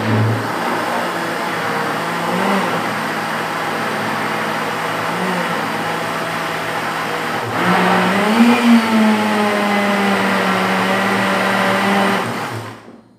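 Philips Walita countertop blender running, mixing a thick cheese-bread batter of eggs, milk, oil, cheese and sour tapioca starch. About halfway through, the motor gets louder and its pitch rises a little, then holds steady until it is switched off near the end.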